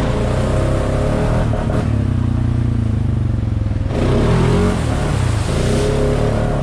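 Honda Foreman ATV's single-cylinder four-stroke engine running under throttle while riding. About four seconds in, the engine note dips and then climbs again.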